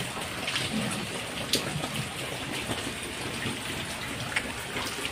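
Rain falling steadily, a constant hiss of water with a few faint sharp ticks of drops.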